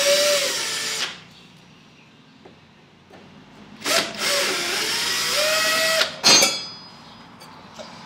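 Cordless drill/driver backing screws out of a steel junction box cover: the motor whines in two runs, the first stopping about a second in, the second from about four to six seconds in with its pitch rising. A short sharp clatter follows just after the second run.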